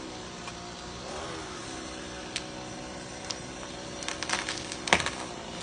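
An engine running steadily at one speed. About four seconds in comes a scatter of sharp cracks and snaps, with one loud crack just before the end.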